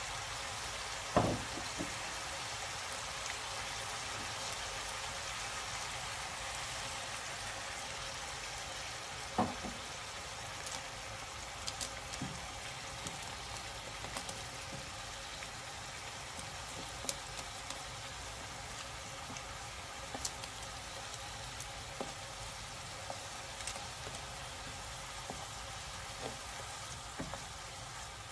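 Vegetables and duck breast in soy sauce sizzling steadily in a pan, with a few light knocks from a wooden spatula working in blocks of dried instant noodles; the loudest knock comes about a second in.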